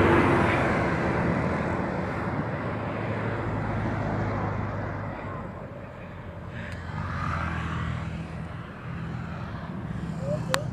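Motorcycle engine running under heavy wind rush on the microphone while riding. The sound eases off and gets quieter toward the middle, then picks up a little again.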